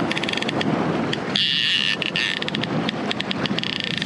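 Fishing reel's drag buzzing in rapid clicks as a hooked fish runs and strips line, merging into a continuous buzz around the middle, over the boat's outboard motor running.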